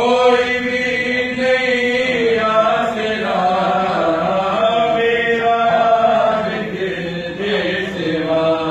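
Men chanting a noha, a Shia lament for Imam Husain, in one long melodic phrase with held notes.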